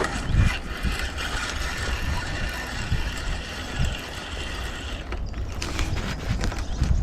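Fishing reel being wound in, its gears whirring steadily with a faint ratcheting click for about five seconds, then giving way to scattered clicks and handling noise.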